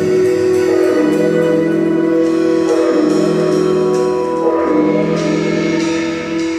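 Live band music: sustained chords that change about every two seconds, with faint sharp hits over them.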